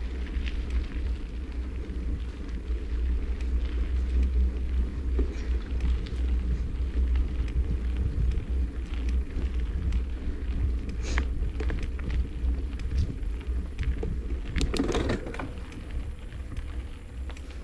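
Wind rumbling on a handlebar-mounted microphone as a bicycle rolls along a rough concrete road, with tyre noise and the bike clattering over bumps, in short bursts about eleven seconds in and again about fifteen seconds in.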